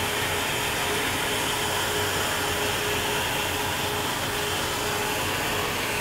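Steady engine-room machinery noise: an even rushing hum with a faint steady tone, no distinct clicks or knocks.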